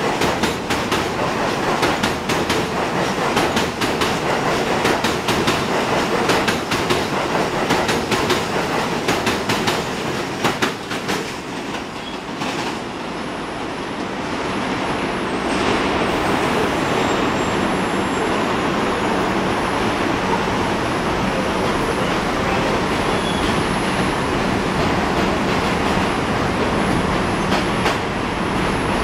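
R62A subway train pulling out of an elevated station, its wheels clattering rapidly over the rail joints. The clatter fades away about twelve seconds in as the train recedes, leaving a steady rushing noise.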